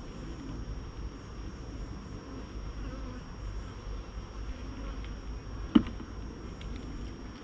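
Honeybees buzzing steadily around an open hive. Near the end a single sharp knock stands out, as the green plastic queen excluder is struck edge-down on the frames.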